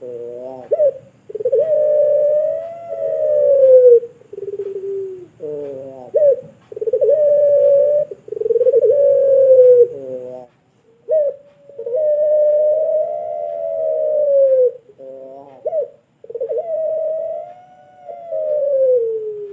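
Puter pelung dove cooing over and over. Its long, drawn-out coos each last about two to three seconds and slide down in pitch at the end, with short stuttering notes between them.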